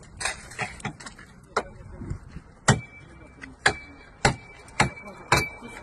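Metal tool striking the crumpled bodywork of a crushed car: lighter knocks at first, then from about three seconds in, loud sharp metallic blows every half second to a second, each leaving a short ringing tone.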